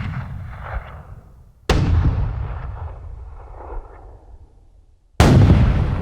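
Heavy weapon blasts from a sound-effects library: two sudden booms, one under two seconds in and one near the end, each followed by a long low rumble that dies away. The rumble of an earlier blast is fading as it begins.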